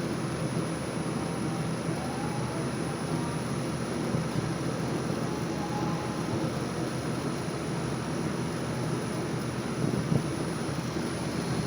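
Gree GMV5 VRF outdoor unit running, its compressors and condenser fan making a steady hum with a faint high whine above it.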